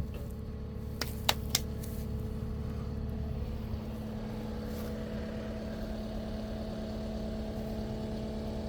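Engine of the machine carrying the mulcher head idling steadily, with a sharp knock at the very start and a few lighter clicks about a second in.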